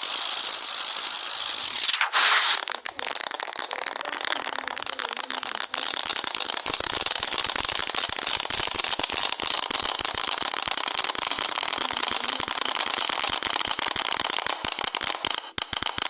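A hissing whoosh for about two seconds, then a dense, continuous rattle of many tiny clicks, like a mass of small hard balls tumbling together.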